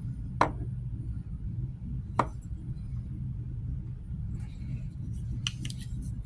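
A large Gerber knife being handled: two sharp clicks about two seconds apart, then a few fainter clicks near the end, over a low steady hum.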